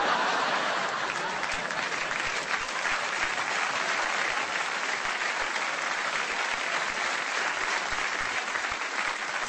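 Studio audience applauding a stand-up comedian's punchline: a long, steady round of clapping that eases off slightly near the end.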